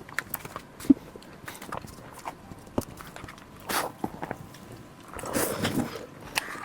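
Close-up eating sounds: chewing and mouth noises with scattered small clicks and short crunchy, noisy bursts, the longest about five to six seconds in.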